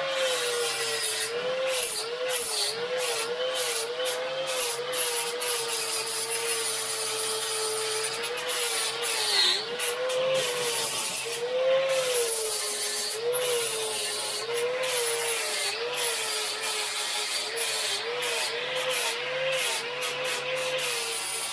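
Angle grinder grinding steel, its motor whine sagging and recovering over and over as the disc is pressed into the metal and eased off.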